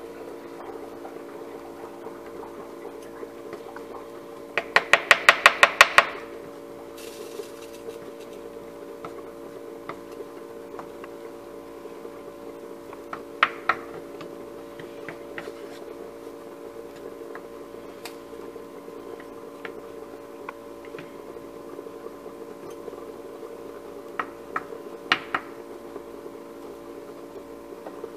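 Wooden spoon stirring and knocking minced ham in a nonstick frying pan: a quick run of about ten rattling knocks around five seconds in, then a few scattered knocks near the middle and the end. A steady low hum runs underneath.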